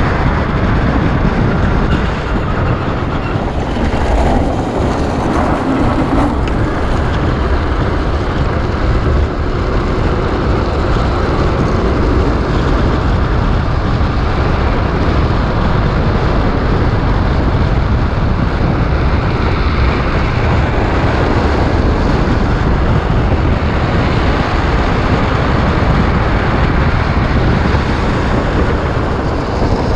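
Loud, steady rush of wind over the camera microphone mixed with the rumble of a drift trike's wheels rolling fast on asphalt during a downhill run.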